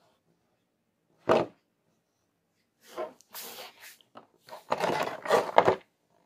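A plastic blister pack on a cardboard backing being handled on a wooden table: a single thump about a second in, then crinkling and rubbing of the plastic and card as it is turned over, loudest near the end with a few knocks against the table.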